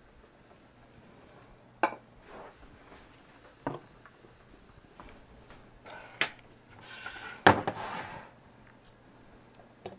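Kitchen utensils and dishes being handled: single sharp clinks and knocks about two, four and six seconds in, then a louder clatter with a short scraping rustle about seven and a half seconds in.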